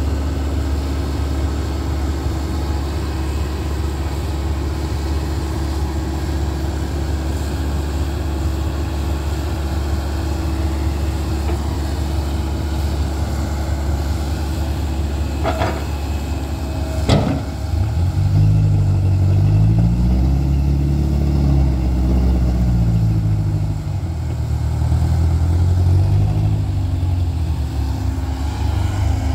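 Komatsu hydraulic excavator's diesel engine running steadily while it digs, with two sharp knocks a little past the middle. After the knocks the engine note rises and falls repeatedly as the machine works under load.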